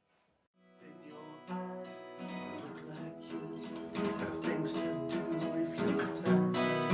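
Acoustic guitar strumming chords, coming in under a second in and growing louder.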